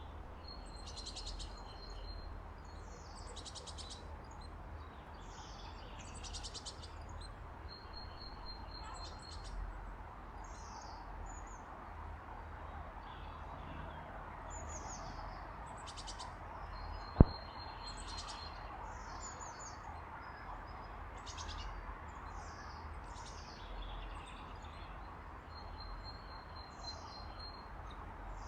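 Small songbirds chirping, with short high calls and quick falling notes repeating throughout over a steady low background hiss. A single sharp click sounds once about two-thirds of the way through.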